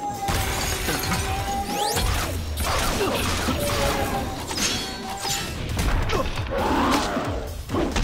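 Cartoon fight soundtrack: dramatic action music under repeated whooshes, hits and crashes, with a crash near the end as a robotic cat is slammed into a wall.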